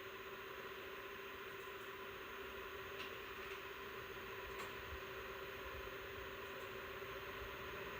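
PowerColor Reaper RX 9070 XT graphics card fans running steadily at about 70% speed: an even rush of air with a steady whine under it, which the owner says comes from the fans themselves and is not coil whine. Two faint ticks sound in the middle.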